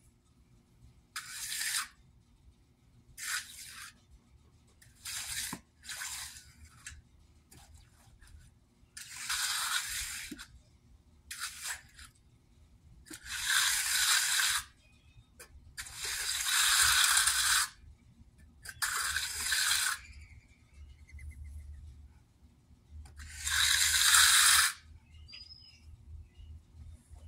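Hand trowel stroked across the surface of wet, freshly poured concrete: about ten separate strokes, from half a second to nearly two seconds long, with pauses between them, finishing the slab.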